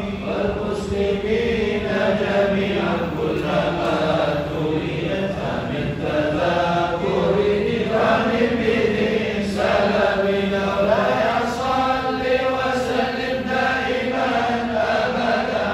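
A congregation of voices chanting an Islamic religious recitation together, continuous and unbroken.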